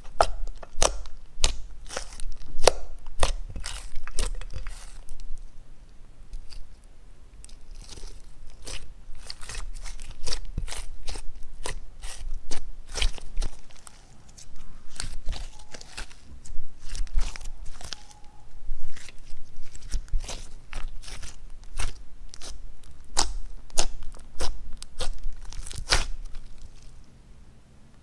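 Thick pink slime, with clay, eyeshadow and glitter mixed in, being squished, folded and stretched by hand, giving dense, irregular sticky clicks and pops as air pockets burst. It goes quieter for a few seconds about a quarter of the way in and again just before the end.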